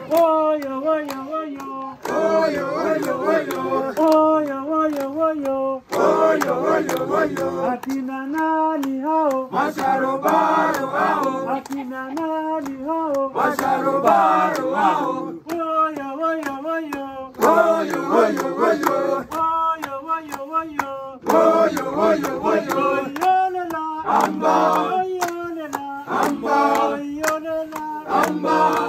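A group of people singing together unaccompanied, with hand claps throughout.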